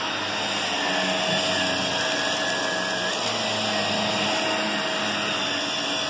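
Shark upright vacuum cleaner running steadily as it is pushed over carpet: an even rush of air with one constant tone from the motor.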